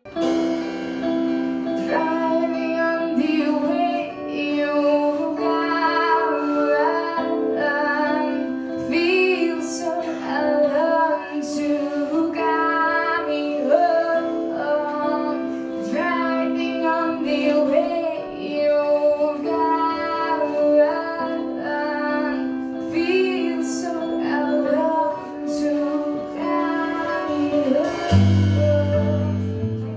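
A song: a woman's voice singing a slow melody over sustained chords, with a low bass line coming in near the end.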